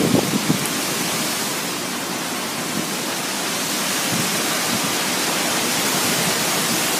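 Steady hiss of a thunderstorm's rain and strong wind, with no breaks or claps.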